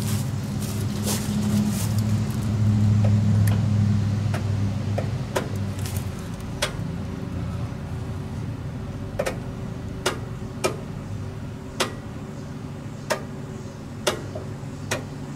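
Scattered sharp light clicks as the carburetor's electric fuel shutoff solenoid is switched on and off by the key to test it. Behind them, a low steady vehicle hum swells and fades away in the first six seconds.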